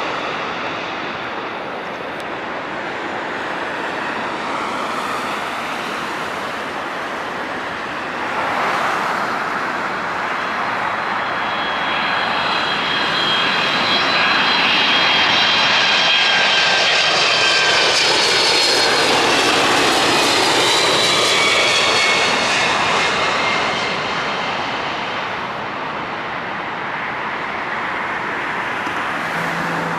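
Jet airliner engines on landing approach: a Boeing 767-300ER's twin engines pass close overhead, with high whining tones that fall in pitch as it goes by, loudest in the middle. For the first eight seconds the noise of the previous airliner, a Boeing 787, fades out before a cut.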